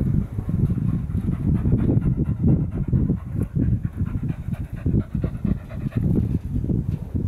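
Wind buffeting the camera microphone: gusty, uneven low rumbling.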